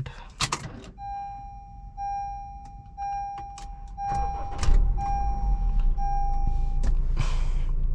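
Honda Civic's 1.8-litre i-VTEC four-cylinder engine being started: it catches about halfway through and settles into a steady idle. Over it a dashboard warning chime beeps six times, about once a second, and stops shortly after the engine starts.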